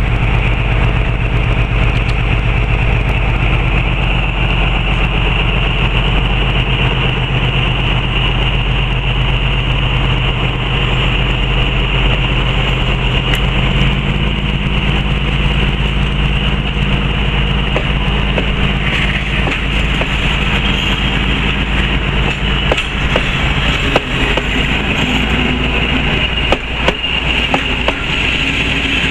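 Diesel locomotive hauling a train of passenger coaches, its engine running steadily, with the engine note changing about halfway through. In the second half, sharp clacks of the coach wheels over the rail joints come more and more often as the coaches roll past.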